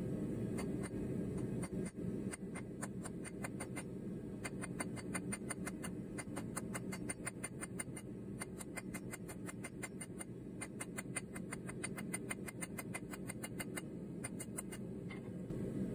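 A hand hammer striking a red-hot steel rod on an anvil in quick light blows, about four or five a second, with a few brief pauses, as the rod is forged into a blanket pin. A steady low hum runs underneath.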